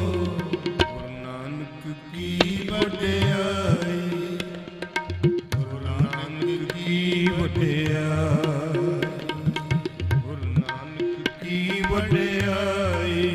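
Sikh kirtan music: a held harmonium-like drone and melody over tabla. The tabla plays steady strikes, and the bass drum's low strokes bend in pitch. A wavering sung line runs above.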